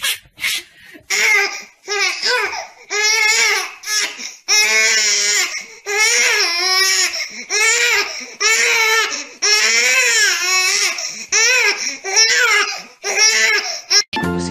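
A baby crying in a long run of high-pitched wails, each rising and falling, some short and some stretched to a second or more.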